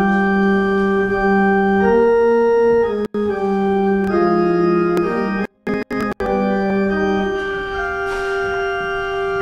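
Organ playing slow, sustained chords that change every second or two, as offertory music. The sound cuts out briefly a few times near the middle.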